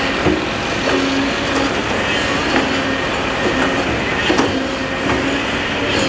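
Heavy crawler machines working: steel tracks clanking and squealing over the steady noise of diesel engines, with scattered knocks.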